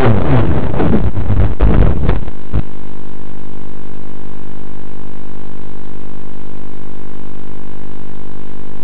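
Wind rush and motor noise picked up by a small RC plane's onboard FPV camera. The motor pitch falls in the first half second, then a few knocks about two seconds in as the plane comes down in the grass. After that only a steady, loud buzz of even tones remains, with no motor.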